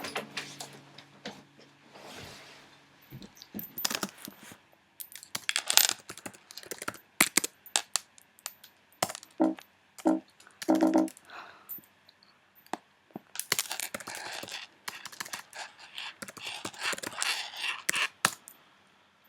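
Scattered clicks, knocks and rustling of handling noise, loudest in clusters around the middle and near the end. Three or four short pitched sounds come about nine to eleven seconds in.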